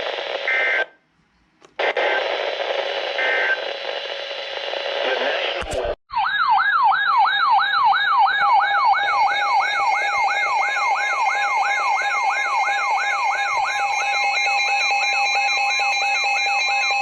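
Radio static hiss with a brief dropout. About six seconds in, a click gives way to a siren-style emergency alert tone: a fast warbling wail sweeping up and down about three times a second, with steady tones joining in later. It marks the start of a broadcast tornado warning.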